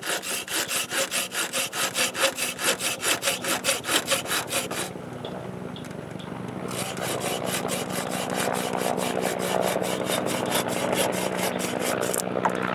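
Folding pruning saw cutting through a hickory axe handle in even push-pull strokes, about three a second. It stops briefly about five seconds in, then goes on with quicker, lighter strokes. A steady engine drone grows louder behind it in the second half.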